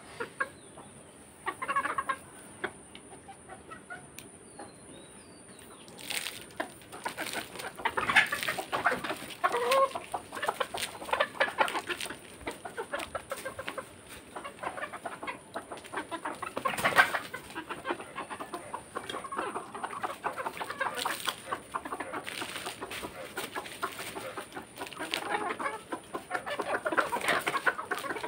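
A flock of domestic hens clucking as they feed on scattered grain, with many short clicks of pecking. The clucking is sparse for about the first six seconds, then busier and louder.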